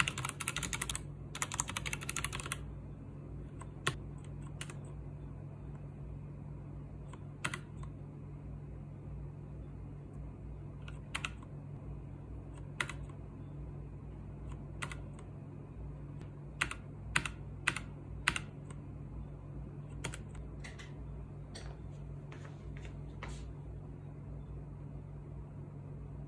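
X21TKL tenkeyless mechanical keyboard with pudding keycaps being typed on. A fast flurry of keystrokes runs for the first couple of seconds, then single key presses follow, spaced a second or two apart, some in quick pairs.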